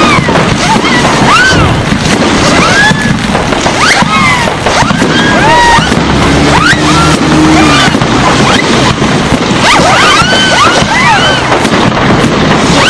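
Fireworks display going off densely, a constant din of bursts and crackle with many short whistling chirps, mixed with music.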